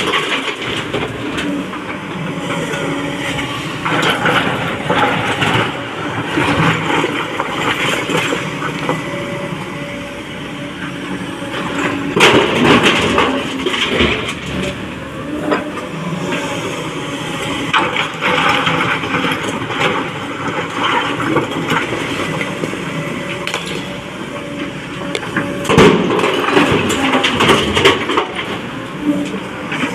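Excavator engine running steadily under load while rock is loaded into a dump truck, with loud crashing clatter of rock about twelve seconds in and again near the end.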